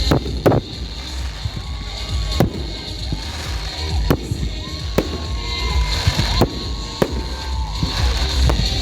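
Fireworks going off: a string of sharp bangs at irregular intervals, about nine in all, over a steady low rumble.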